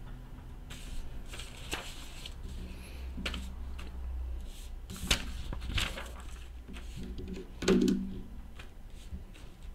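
Scattered clicks and light taps of small objects being handled at a desk, a few seconds apart, the loudest about three-quarters of the way through.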